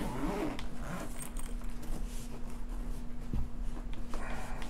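Quiet handling noises from hands working small objects and packaging: faint rustling, with a single sharp click about three and a half seconds in, over a steady low hum.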